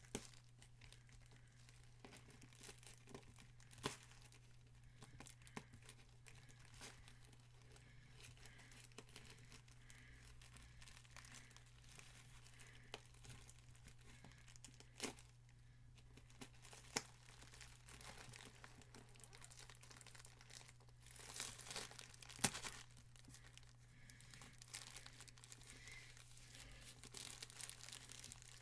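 Packaging being opened by hand: faint tearing and crinkling, with scattered clicks and a denser spell of rustling about 21 seconds in.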